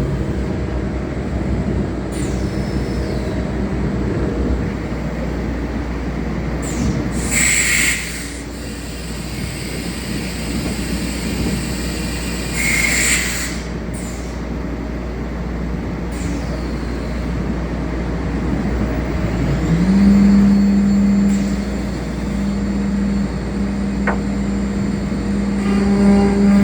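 CNC router machinery running with a constant low hum, broken twice by short hissing bursts. Later a spindle motor spins up to a steady high hum.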